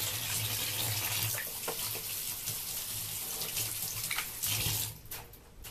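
Water running from a bathtub tap as hands are washed under it. The flow is shut off near the end, leaving a few faint clicks.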